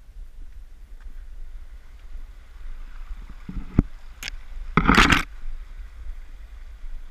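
Small mountain creek running faintly under a steady low rumble, with two sharp knocks a little after three and a half seconds in, then a loud half-second scrape near five seconds.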